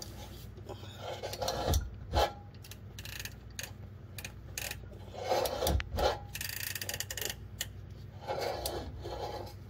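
A ratcheting wrench turns a Mazda 2.5L four-cylinder engine's crankshaft pulley in slow strokes. The adjuster-less water pump belt is being forced onto its pulley, and each stroke brings a burst of rubbing with a few sharp clicks, three bursts in all.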